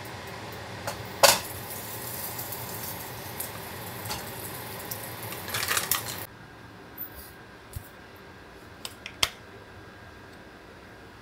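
Oil hissing in a hot nonstick frying pan, with a sharp click about a second in and a louder burst of sizzling near six seconds as a plant-based burger patty goes into the pan. The sound then cuts off abruptly to a quieter room with a few light clicks of dishes.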